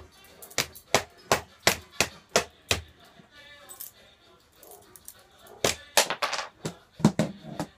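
Butterfly knife being flipped, its handles clacking in a quick run of sharp clicks, about three a second, then a pause and a second run near the end.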